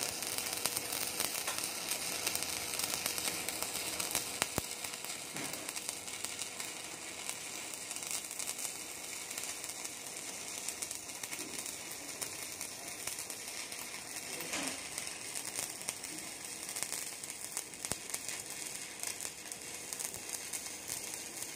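Electric arc welding: a steady crackling, sizzling arc as a second pass is run on a horizontal (2G) joint.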